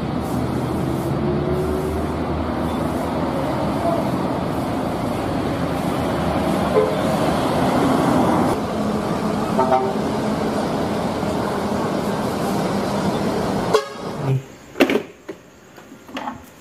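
Road traffic with a large diesel coach driving past, a steady engine and tyre noise, with a vehicle horn tooting briefly a few times. About fourteen seconds in, the traffic sound cuts off abruptly.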